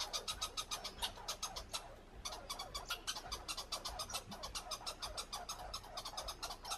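American red squirrel chattering: a fast, even rattle of harsh pulses, about ten a second, with a brief break about two seconds in. It is the squirrel's territorial scolding call during a squabble over food.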